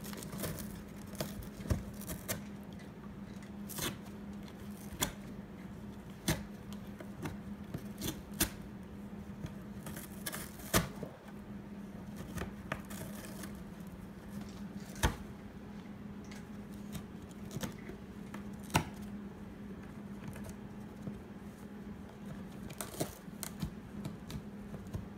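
Savannah cat biting and tearing at the edge of a cardboard box: irregular crunching snaps and rips, a few sharper and louder than the rest, over a steady low hum.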